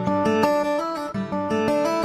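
Background music with a melody of plucked guitar notes.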